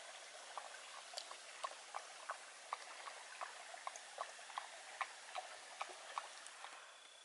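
Dog lapping water from a shallow creek: faint, even wet clicks about two or three a second, which stop shortly before the end.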